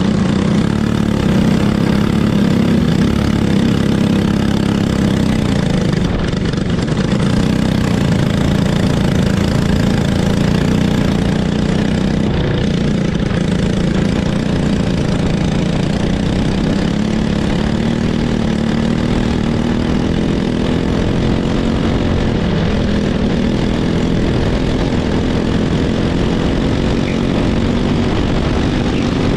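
Racing kart engine running close to the microphone, its pitch holding fairly steady with slight rises and dips, over a constant hiss.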